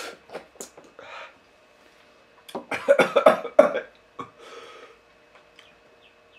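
A person coughing and clearing their throat in a short cluster about three seconds in, with breathy puffs of air before and after: a reaction to the burn of a very hot chilli sauce.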